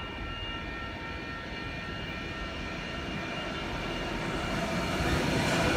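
Coal train hauled by Pacific National diesel locomotives approaching, its engine and wheel rumble growing steadily louder.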